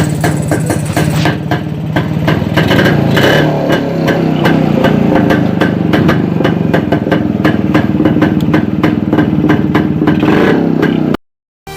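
A 1971 Jawa's single-cylinder two-stroke motorcycle engine running, with a few throttle blips. The recording cuts off suddenly near the end.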